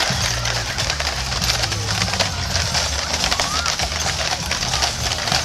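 Iron-shod hooves of a team of Clydesdale draft horses clip-clopping on asphalt as they pull a wagon past at a walk, many overlapping hoof strikes over a steady low rumble.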